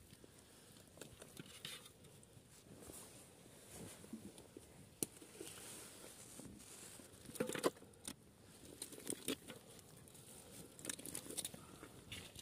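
Live snakehead fish squirming and slapping wetly against each other in a pot, with faint irregular patter and a few sharper knocks, the loudest about seven and a half seconds in.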